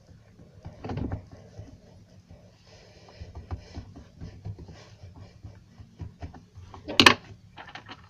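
Slime being kneaded and stretched by hand: many small sticky clicks and crackles, with one louder sharp pop near the end.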